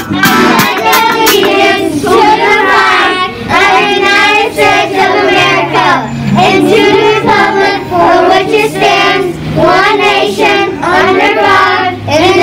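A group of schoolchildren reciting the Pledge of Allegiance aloud in unison.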